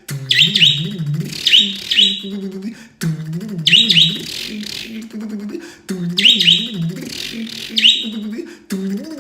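A man making car-engine noises with his voice, a low wavering hum that rises and falls, while a pet bird chirps in quick high bursts about once a second.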